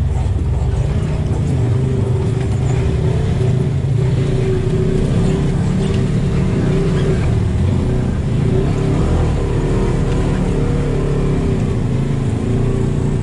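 Polaris RZR side-by-side engine, heard from inside the cab, running steadily at low trail speed without hard revving.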